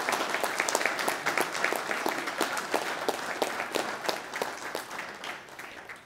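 An audience applauding, many hands clapping together, dying away over the last second or so.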